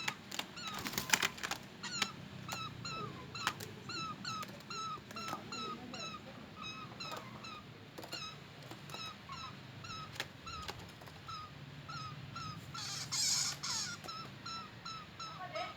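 A pet bird calls over and over, a short pitched note repeated evenly about two to three times a second. A few sharp clicks come in the first two seconds, and a brief rustle about thirteen seconds in.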